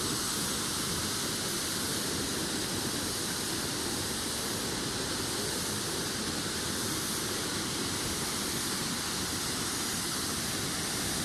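A waterfall rushing: an even, steady roar of falling water.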